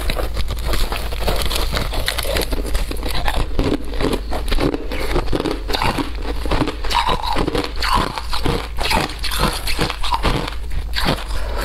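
Crunching of compacted shaved ice as a person bites into a block and chews it, a dense run of rapid crackles close to the microphone. A steady low hum runs underneath.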